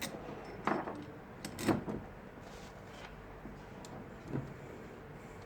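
Light knocks and clicks from waveguide components of a slotted-line VSWR setup being handled and fitted together on the bench. There are four or five separate knocks, the loudest a little under two seconds in.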